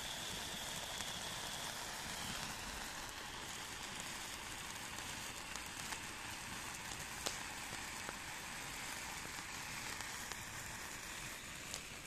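A cake fountain firework burning with a steady hiss and a few scattered small crackles.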